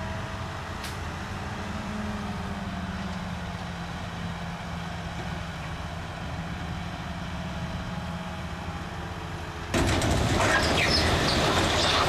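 Heavy diesel engine of a Komatsu bulldozer running steadily at a low drone. About ten seconds in it gives way abruptly to much louder clanking and high squealing of the steel crawler tracks working over rock.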